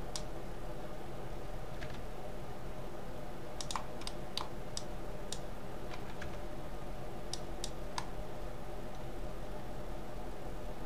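Computer keyboard keys and mouse buttons clicking sparsely, about a dozen short clicks, some in quick pairs, over a steady low hum.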